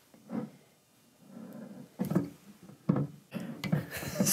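Blade cutting and scraping at the wax seal on a rum bottle's neck: a handful of short scrapes and small knocks.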